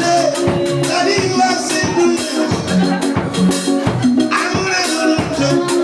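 Live church praise music with a steady drum beat, sustained keyboard or bass notes and singing.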